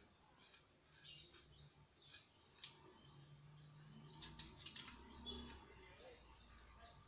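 Faint clicks and small metallic scrapes of a can tap valve being screwed onto the threaded top of an R134a refrigerant can, with one sharper click about two and a half seconds in and a quick run of clicks a little past halfway.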